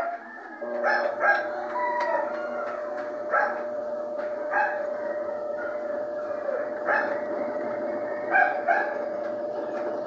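Whirlpool 360 top-load washing machine spinning up in spin-dry mode, with a steady whine from about half a second in; the machine has a fault that halts its spin dry and sends it back to filling with water. A dog barks repeatedly in the background, and these barks are the loudest sounds.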